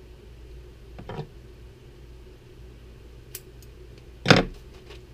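Hands handling a piece of bucktail and small tools at a fly-tying bench over a steady low room hum: a soft click about a second in, a few faint ticks, then one sharp click near the end followed by a few light ticks.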